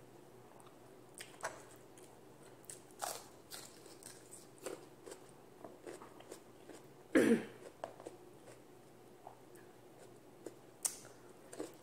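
Close-up eating sounds: quiet chewing with scattered short smacks and clicks as food is eaten by hand, and one louder brief sound about seven seconds in.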